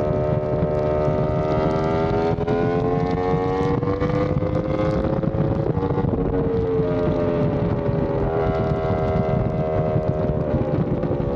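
Yamaha R1M's crossplane inline-four through an SC Project exhaust, riding at speed: the engine note climbs slowly for about five seconds, eases off, then climbs again near the end, over a steady rush of wind.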